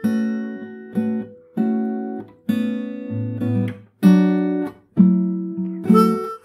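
Acoustic guitar strumming chords, a new chord struck about once a second and left to ring and fade before the next.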